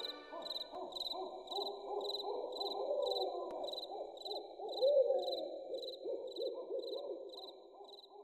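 Night-time nature sound effect: an owl hooting over crickets chirping evenly, about twice a second. It swells about five seconds in and then fades out near the end.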